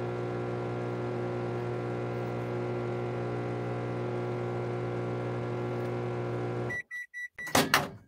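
LG transformer-type microwave oven running with a steady electrical hum, a noise the owner calls not normal; it runs without heating, the fault being a burned-out high-voltage diode. Near the end the hum cuts off, a few short high beeps sound, and the door latch clacks open.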